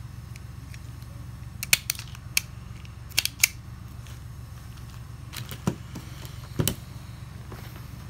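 Pittsburgh automatic wire stripper's jaws and spring mechanism clicking and snapping as it is worked and handled, in a few short clusters of sharp clicks. A heavier knock comes near the end.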